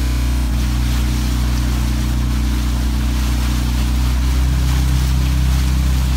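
Motorboat engine running steadily with a low hum, with wind and water rushing past.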